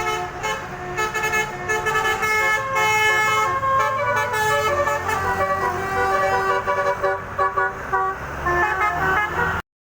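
Basuri telolet bus horn, a multi-trumpet electric horn, playing a tune of changing steady notes over a low rumble, cutting off abruptly near the end.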